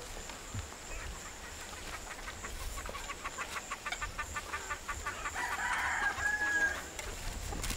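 Domestic chickens: a quick, even run of clucks about two and a half seconds in, then a rooster crowing once for about a second and a half.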